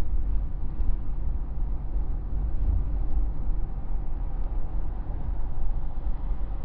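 Steady low engine and road rumble of a truck cruising at freeway speed, heard from inside its cab.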